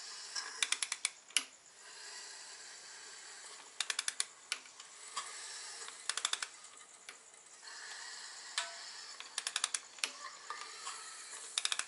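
A hand socket ratchet clicking in five quick runs of a few clicks each as the RB25DET's crankshaft is turned over by hand through two revolutions to check the cam timing marks. Between the runs there is a hiss of air as the pistons push it in and out of the open engine like a big air pump.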